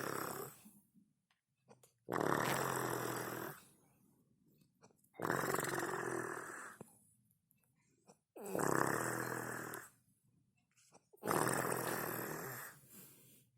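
A woman snoring in her sleep: one drawn-out snore of about a second and a half roughly every three seconds, four in all, with the end of another just as it begins.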